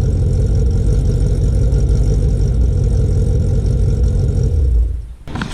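Fifth-generation Camaro SS's LS3 V8 idling steadily through its newly fitted performance mufflers, a deep exhaust note. The sound drops away about five seconds in.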